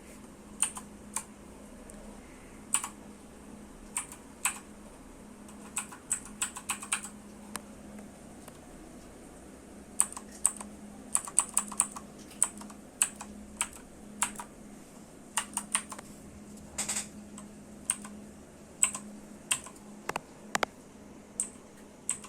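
Redragon Kala K557W mechanical keyboard with clicky Outemu Blue switches being typed on: irregular keystrokes, some single presses and some short quick runs of clicks.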